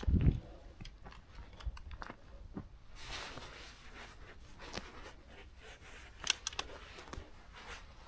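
Quiet handling noises: a low thump at the start, rustling, and a few light clicks about six seconds in.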